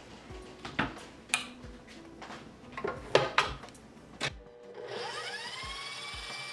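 A few sharp knocks and scrapes on a stand mixer's steel bowl, then, about four and a half seconds in, the mixer's motor starts. Its whine rises in pitch and settles into a steady run as the dough hook kneads the flour.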